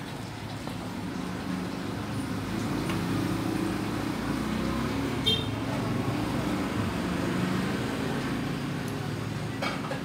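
Small metallic ticks from the brass pin-tumbler lock cylinder and key being handled, one with a brief ring about five seconds in and another near the end, over a steady low background rumble.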